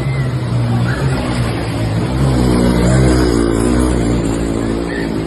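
A motor vehicle engine running and revving, its pitch rising to a peak about three seconds in and falling again, over a steady rushing noise.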